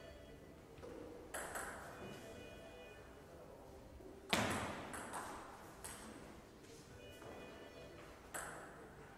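Table tennis ball striking rubber-faced bats and the table during a rally: a string of sharp clicks, with a quick run of them in the middle, the loudest about four seconds in.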